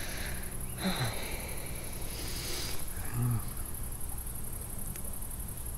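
Quiet waterside ambience: a steady high-pitched insect buzz over a low background rumble, with two short murmured hums from a person, one about a second in and one about three seconds in.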